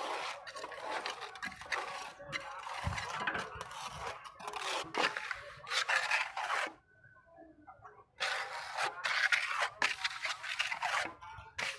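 Hand trowel scraping and rubbing cement mix across the surface of a cement tile, in two long stretches with a short pause about seven seconds in.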